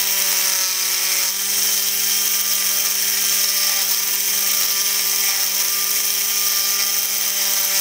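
Electric drill running at a steady pitch, a low hum with a high hiss, as its bit grinds a 3 mm hole into an 8 mm ruby ball.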